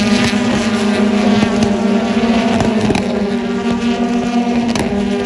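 A pack of BTCC touring cars racing past, their turbocharged 2.0-litre four-cylinder engines running loud and high-revving, with a few sharp cracks from gearshifts or exhaust pops.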